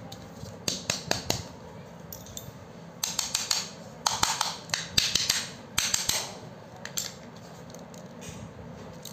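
Parts of a dismantled angle grinder and a screwdriver being handled on a hard tiled floor. A few sharp clicks come about a second in, then a few seconds of metallic scraping and rattling, then one more click.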